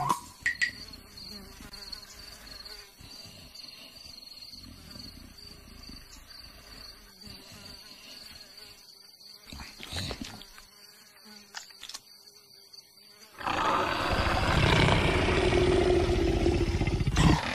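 Savanna ambience with a steady, high insect buzz while the fat cartoon leopard sleeps. About thirteen seconds in, a loud, drawn-out leopard roar starts as the leopard raises its head.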